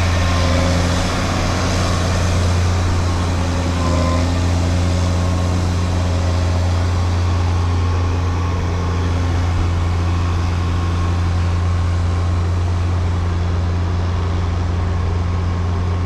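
Old Mack truck's diesel engine running steadily, a deep even drone.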